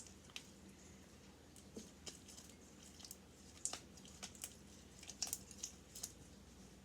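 Homemade glue slime being squeezed and poked by hand, giving faint, irregular little wet clicks and pops, about a dozen of them, more of them in the second half.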